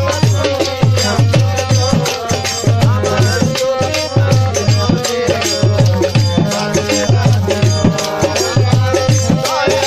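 Bengali baul folk music: a deep drum beats steadily, with rattling hand percussion and a sustained melodic line over it.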